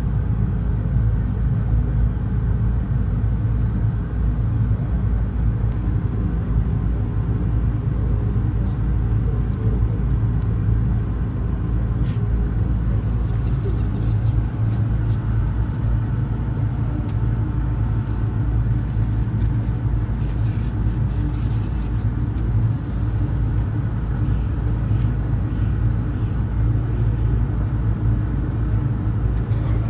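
Steady low mechanical rumble with a constant hum, as from a motor running nearby, unchanging throughout.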